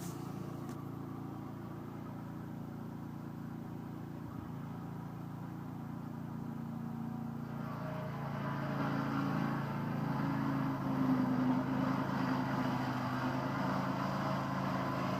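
An engine running steadily with a low hum, growing louder about halfway through.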